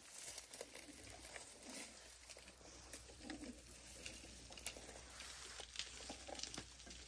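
African elephants feeding on dry grass and brush: faint rustling, tearing and crackling as they pull up and chew dry vegetation, with scattered small snaps.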